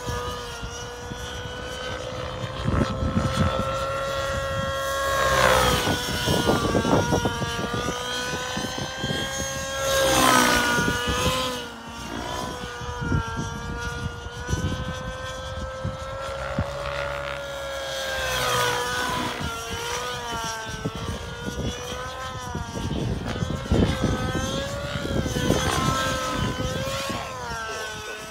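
Align 700XN nitro RC helicopter in flight: a steady high engine-and-rotor whine with overtones. Its pitch bends and it swells louder several times as the helicopter swoops through its manoeuvres.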